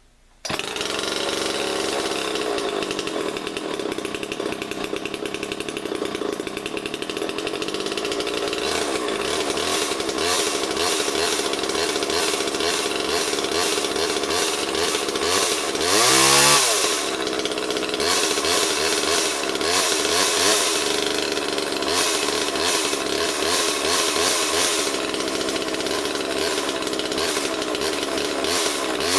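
Two-stroke gas chainsaw running steadily at idle. About 16 seconds in it is blipped up to high revs and drops back, and it revs again at the very end.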